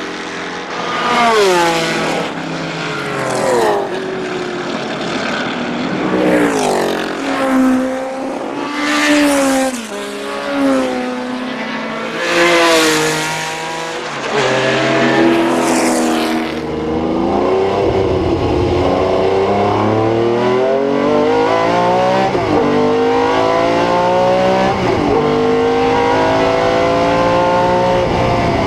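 Ferrari 512 M racing V12 heard from the cockpit, its revs falling and rising again and again through a sequence of corners, with loud rushes of noise over it. In the second half it pulls hard through four or so upshifts, the pitch climbing steadily and dropping back at each change.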